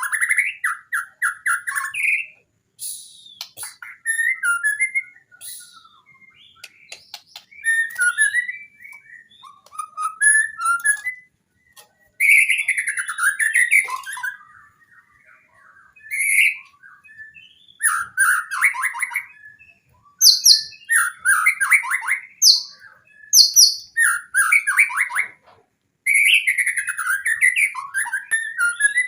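White-rumped shama singing a long, varied song in bursts with short pauses between them. It mixes clear whistles, fast trills and rapid ticking notes, and is full of phrases mimicked from other birds.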